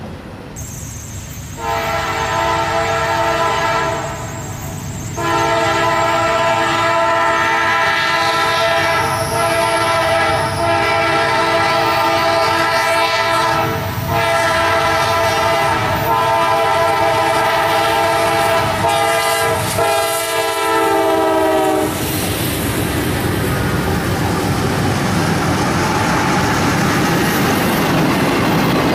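A freight locomotive's multi-note air horn sounds a short blast, then a long one held for about seventeen seconds with a couple of brief breaks, as a warning for the road crossing. The horn stops about three-quarters of the way through, and the train's boxcars then rumble and clatter past close by, with steel wheels on rail.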